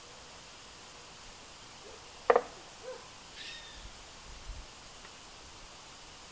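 Woodpecker striking a wooden utility pole: one sharp double knock about two seconds in. Faint, short high calls follow about a second later.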